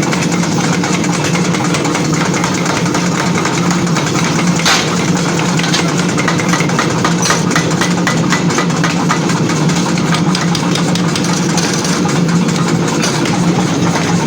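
Forging-workshop machinery running with a steady low hum, with many light metallic clicks and one sharp knock about four and a half seconds in.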